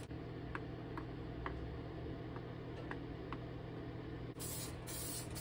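Steady low hum with a few faint ticks. About four seconds in, an aerosol spray-paint can starts hissing in a run of short, quick bursts, laying on a light coat.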